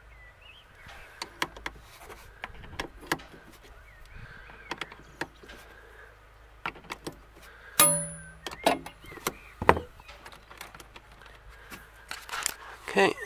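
Irregular metallic clicks and clinks of a 10 mm wrench and tools working the negative terminal clamp on a car battery. A louder ringing metal clank comes about eight seconds in.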